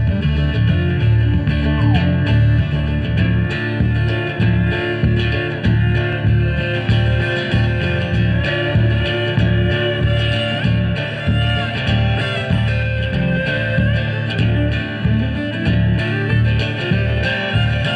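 A band playing an instrumental break with no singing: guitar and bass over a steady beat.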